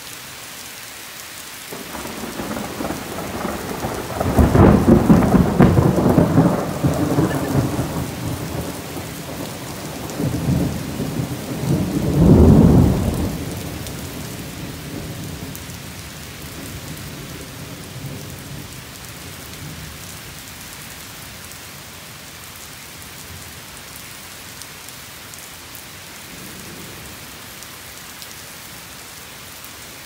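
Heavy rain falling steadily on foliage and wet paving, with a long roll of thunder that swells a couple of seconds in, peaks twice, and rumbles away over several seconds.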